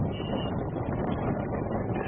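Wind buffeting the microphone: a steady, loud, low rushing rumble.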